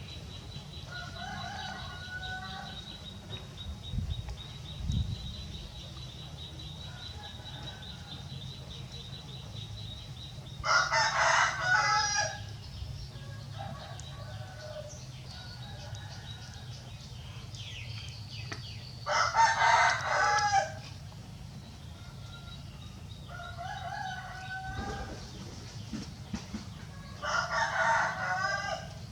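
Rooster crowing three times, each crow lasting about two seconds, roughly eight seconds apart, with fainter short calls in between.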